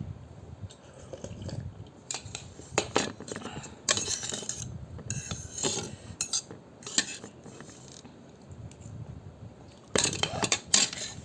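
Eating utensils clinking and scraping against a bowl of noodle soup in scattered bursts, loudest about four seconds in and near the end.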